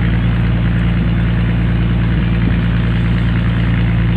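Fishing boat's engine running steadily at a constant speed, a low, unchanging hum.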